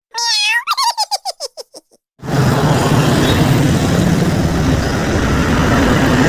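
A high-pitched giggle of about a dozen quick syllables, falling in pitch, lasting about two seconds. After a brief silence, a steady, loud vehicle engine rumble with a noisy rush starts and runs on.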